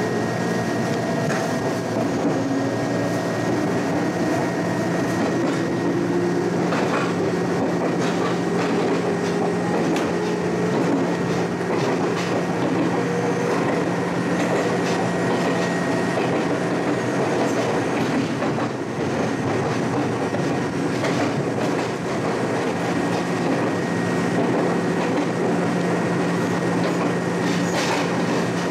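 Electric local train of the Ryutetsu Nagareyama Line running along the track, a steady running hum with occasional clacks as the wheels pass over rail joints.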